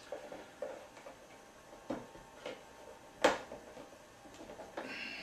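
Scattered light clicks and handling noise from hands fitting a cable into a plastic Romex box, with one sharper click a little over three seconds in.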